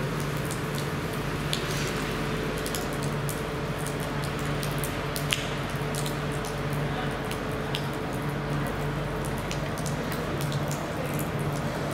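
Rain falling on wet asphalt and puddles, a steady patter with individual drops ticking and splashing, over a steady low hum.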